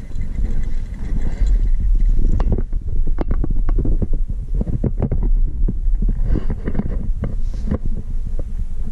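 Wind buffeting the microphone in a heavy, uneven rumble, with a run of irregular clicks and knocks through the middle, typical of footsteps and gear on a hiking trail.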